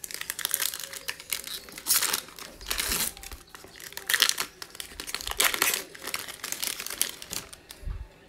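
Foil wrapper of an NBA Hoops trading card pack being torn open and crinkled by hand, in irregular bursts of rustling.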